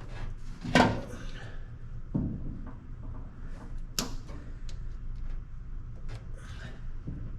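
Scattered clicks and knocks of hand work on a truck's plastic bulkhead wiring connector, the loudest about a second in and a sharp click about four seconds in, over a low steady hum.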